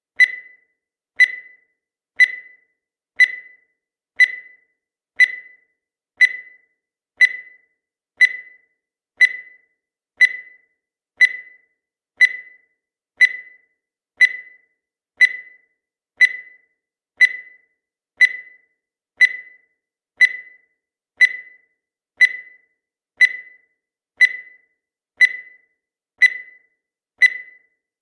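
Countdown timer sound effect: a short, high, ringing tick once every second at a steady pace, each one fading quickly.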